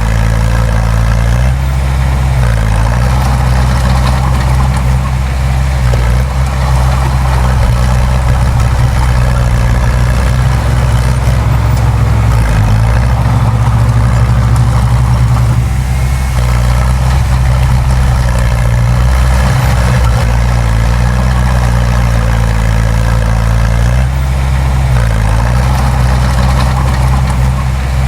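Bulldozer's heavy diesel engine running steadily under work. Its note shifts briefly a few times.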